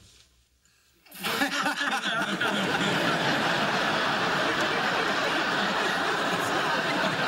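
Sitcom studio audience laughing, a big sustained laugh that starts about a second in after a brief near-silent pause and holds steady.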